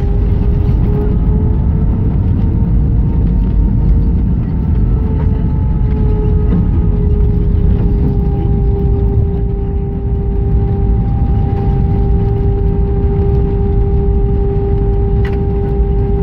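Cabin noise of an Airbus A319 decelerating on the runway just after touchdown: a loud, steady rumble of engines, wheels and airflow, with a steady hum running over it.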